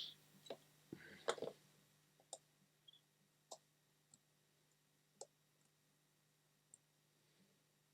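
Faint, scattered clicks and light taps from tools and small parts being handled while the switches are soldered onto the oscilloscope kit's circuit board, with a short cluster of knocks about a second in, over a faint steady hum.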